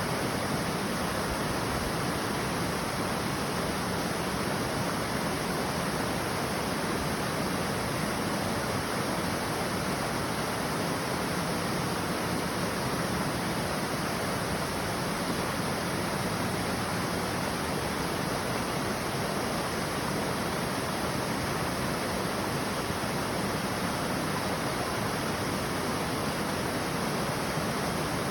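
Waterfall: water falling and rushing in a steady, unbroken roar of noise.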